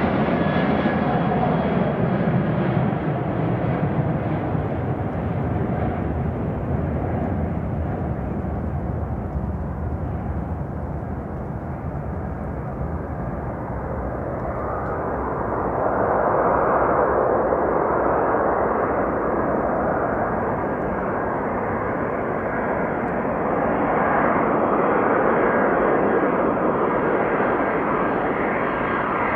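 Boeing 767-300ER on final approach, its twin jet engines running with a steady rushing noise. A whine falls in pitch over the first few seconds. The noise grows louder about halfway through as the airliner nears the runway to land.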